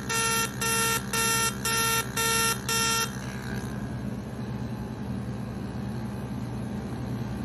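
Skin-resurfacing laser beeping as it fires, about two short beeps a second, six in all. The beeping stops about three seconds in, and a steady low hum carries on.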